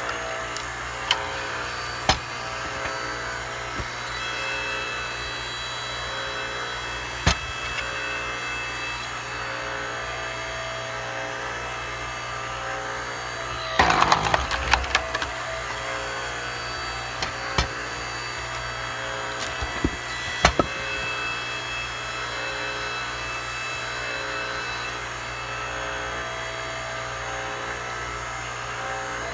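Hydraulic log splitter running with a steady hum while logs are split: sharp cracks and splintering wood a few times, with the loudest burst of cracking about halfway through.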